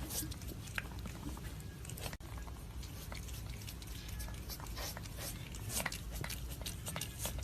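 A pet chewing or biting at something: many small irregular clicks and smacks over a low background rumble.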